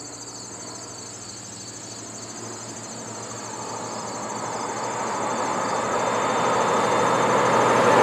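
Crickets chirping in a steady pulsing trill while a vintage hot rod's engine and tyres approach, growing steadily louder from a few seconds in.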